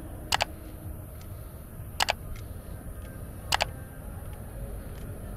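Mouse-click sound effect for an animated subscribe button: three double clicks, about a second and a half apart, over a steady low background rumble.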